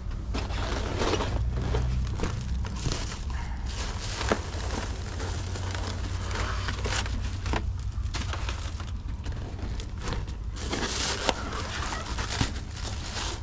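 Thin plastic takeout bags rustling and crinkling as they are handled and lifted out of a foil-lined insulated delivery bag, with scattered sharper crackles.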